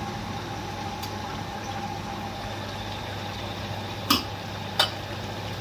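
Chicken sizzling and bubbling in the juices it has released in a large iron kadhai, with a steady hum underneath. A metal spatula knocks sharply against the pan twice about four seconds in.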